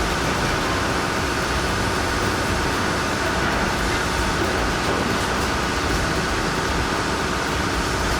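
Heavy diesel machinery running: a steady, loud, unbroken engine and mechanical noise.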